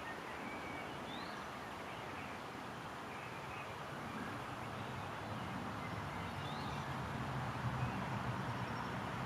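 Outdoor background noise with a low engine hum that grows a little louder after about five seconds, and a few faint bird chirps.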